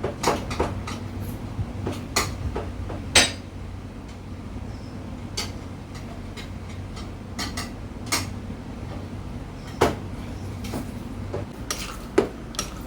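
Hand citrus squeezer being pressed down again and again on lime halves: irregular clicks and clacks as the squeezer is worked, the loudest about three seconds in and again near ten seconds.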